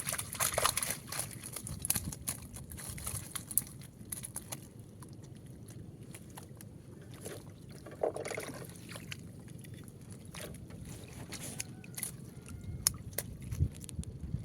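Water sloshing and lapping, with scattered sharp knocks and clicks of handling against a low steady rumble.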